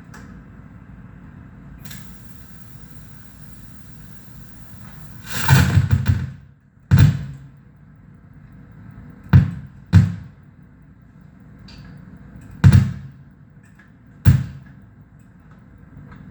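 Noise rig of mixer feedback, tape and reverb: a steady low hum, a high hiss coming in about two seconds in, then a loud fluttering burst about five seconds in followed by five sharp, bass-heavy hits, irregularly spaced, each dying away in a short reverb tail.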